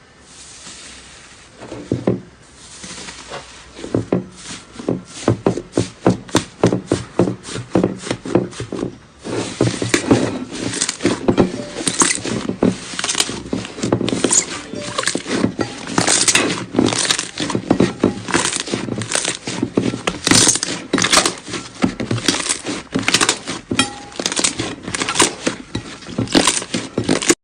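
Slime being handled: a quick run of sticky clicks and pops, several a second, sparse at first and much busier from about nine seconds in.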